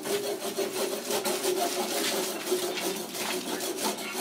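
Steady rubbing and scraping of hand tools working resin into the carbon and Kevlar cloth laid over a kayak hull, with a low hum underneath.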